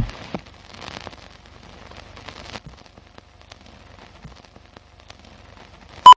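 Soft old-film crackle with scattered clicks and pops, then near the end a single short, loud beep, the sync beep of a film countdown leader.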